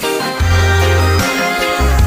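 Background music with a heavy bass line and funk-style guitar.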